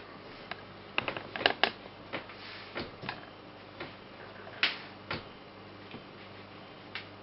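A metal pastry ring cutting rounds out of rolled pelmeni dough, its edge clicking and tapping on the hard tabletop underneath. About a dozen irregular clicks, the loudest around one and a half seconds and four and a half seconds in.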